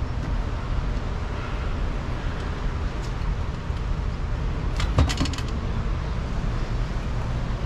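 Steady low roar of water rushing through a dam's outflow channel, with a short burst of clicks and rattles about five seconds in.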